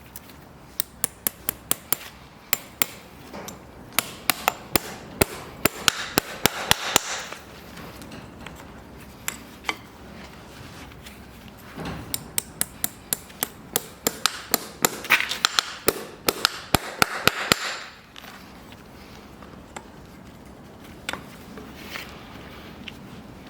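Farrier's hammer striking metal in quick, evenly spaced taps, about three to four a second, in two runs of several seconds each with a pause between.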